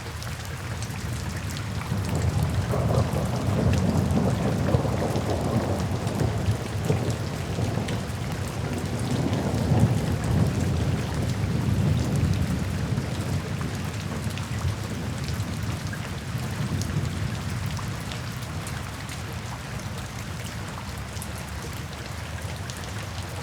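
Steady rain falling, with a long roll of thunder rumbling in about two seconds in, swelling twice and slowly fading away.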